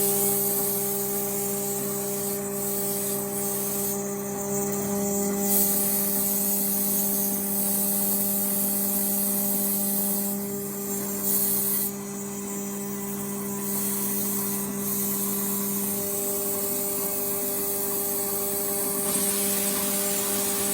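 CNC machine running: a steady hum made of several held tones, with a high hiss over it that drops away twice for a second or so and comes back.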